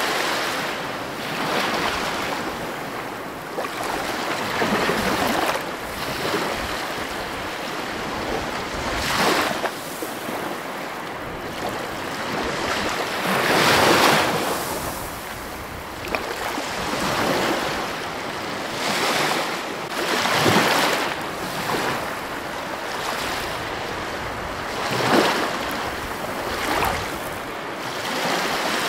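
Ocean surf breaking and washing over rocks, swelling and falling in surges every few seconds, loudest about halfway through.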